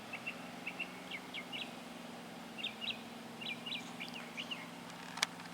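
Small birds chirping: short, high chirps in quick clusters of two or three, repeating every second or so, over a faint steady hum.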